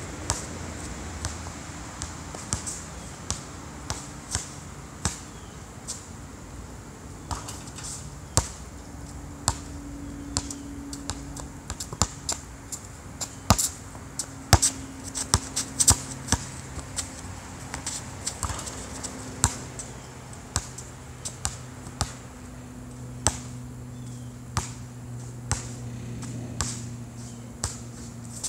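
Basketball bouncing on a hard outdoor court: a string of sharp slaps at an uneven pace, coming faster in the middle, over a faint low hum.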